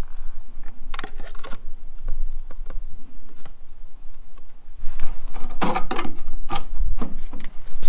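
Light clicks and scrapes of a 3D-printed plastic downspout filter being handled and pushed onto the bottom of a downspout, a few early on and a busier cluster about five seconds in, over a steady low rumble.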